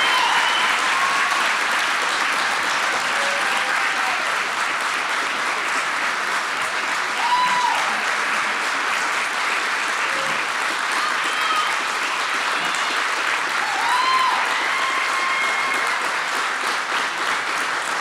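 Audience applauding steadily, with a voice calling out above the clapping twice, about seven and fourteen seconds in.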